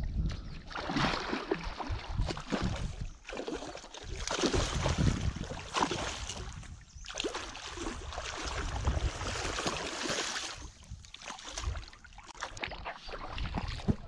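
Irregular splashing in shallow water as a hooked fish thrashes on the line at the bank and is brought in, coming in uneven surges.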